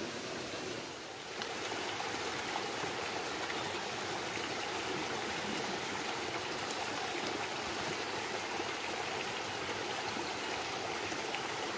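Steady rushing of flowing stream water, a continuous even hiss with no breaks.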